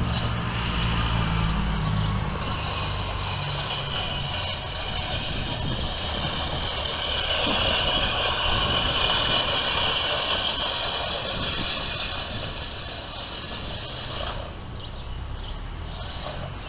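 Manual push reel lawnmower whirring as its spinning blades cut grass, then stopping near the end.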